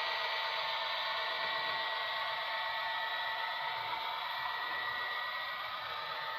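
HO-scale model train running: a steady whine from the locomotive's electric motor and gears over wheel noise on the track, fading slightly.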